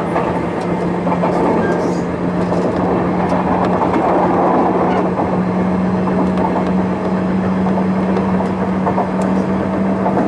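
Interior running sound of a Sotetsu New 7000 series electric train, heard inside the Hitachi GTO-inverter motor car, running at speed: steady rumble of wheels on rail with a steady low hum throughout and a few light clicks.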